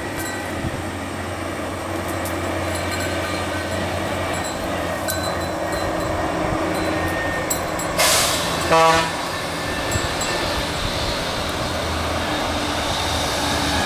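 Steady rumble of vehicles going by. About eight seconds in there is a brief loud hiss, and just after it a short pitched call.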